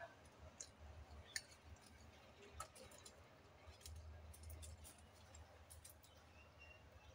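Very quiet: a few faint, scattered clicks and light taps of a plastic plate and steel spoon being handled.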